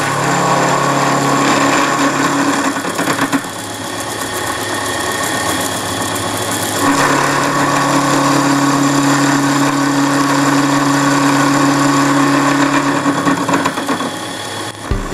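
Drill-press mill spindle turning at about 1,000 RPM on freshly fitted angular contact bearings, with a carbide end mill cutting aluminum: a steady pitched machine hum with cutting noise. It eases off for a few seconds about three seconds in, then comes back strong.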